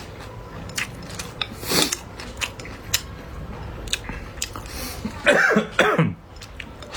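Close-up eating sounds: chewing and biting with many small wet clicks and smacks, and a few short falling-pitched sounds about five and a half seconds in.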